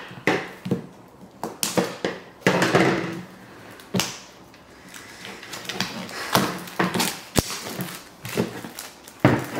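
Scissors snipping and cellophane shrink wrap crinkling as it is cut and peeled off a cardboard jigsaw puzzle box, with scattered sharp clicks and taps.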